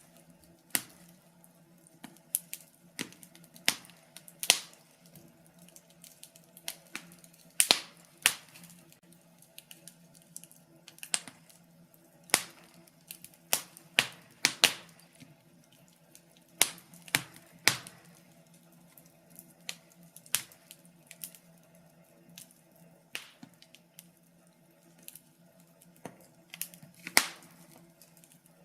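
Wood fire crackling: burning logs give irregular sharp pops and snaps, a few each second with some louder cracks, over a faint steady low hum.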